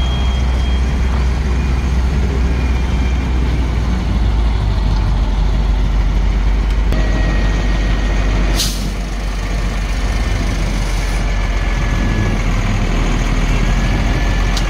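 Heavy diesel vehicle engine running with a steady low rumble. A short burst of air hiss, typical of a truck's air brakes, comes about eight and a half seconds in.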